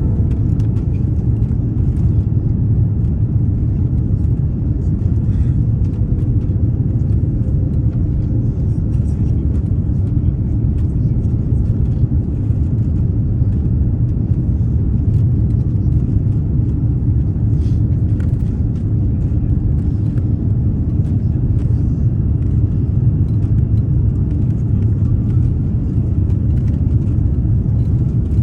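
Steady, loud low rumble of a moving vehicle heard from inside, unchanging throughout.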